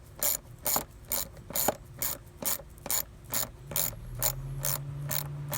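Ratchet wrench tightening bolts, a little over two ratcheting strokes a second. About two-thirds of the way through, a steady low hum comes in underneath.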